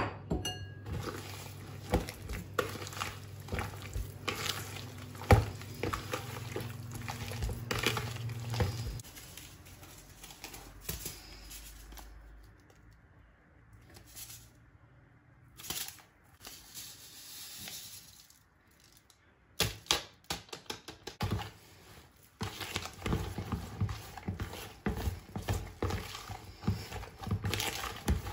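Soft butter, sugar and egg dough being mixed by hand and with a spatula in a plastic bowl: irregular squishing with knocks and taps against the bowl. It goes quieter for several seconds in the middle, then a quick, dense run of small taps near the end.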